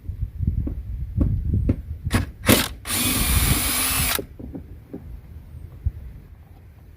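Power drill fitted with a 10 mm socket spinning a bolt for about a second, a little after the middle, preceded by several clicks and knocks as the tool and socket are handled.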